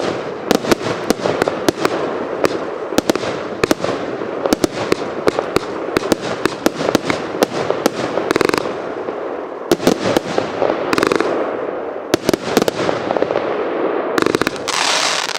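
Evolution Fireworks' Britannia consumer firework going off: a rapid, dense run of sharp bangs and crackling, with short rushing hisses about eight and eleven seconds in and again near the end.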